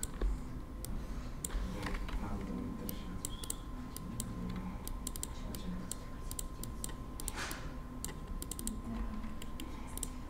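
Irregular clicking of a computer keyboard and mouse, keys tapped in short runs with pauses between them.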